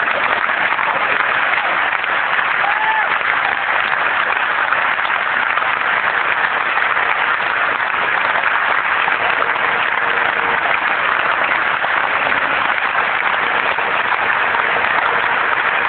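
Large theatre audience applauding, a steady, continuous wash of clapping.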